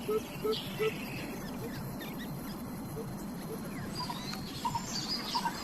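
A coucal gives a series of low hooting notes, about three a second, that stop about a second in. Near the end, short high chirps and squeaks come in, typical of young birds calling at the nest.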